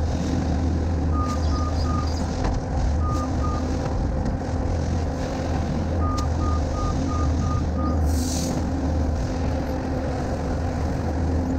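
Skid steer's diesel engine running steadily while its backup alarm beeps in short runs as it reverses: a few beeps about a second in, a couple near three seconds, and a longer run from about six to eight seconds. A brief hiss sounds about eight seconds in.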